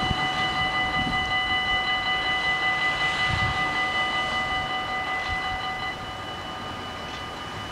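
Dutch level-crossing warning bells ringing steadily while the half-barriers rise after a train has passed. Part of the ringing cuts off about six seconds in, as the barriers come fully up, and the sound drops in level.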